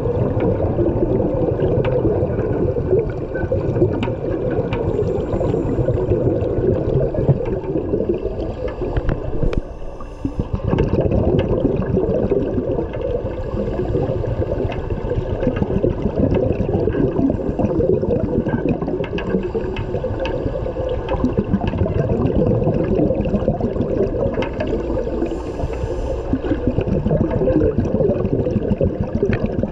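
Underwater rush and gurgle of water with divers' exhaled regulator bubbles, heard from inside a shark cage. It runs on steadily, with a brief lull about ten seconds in.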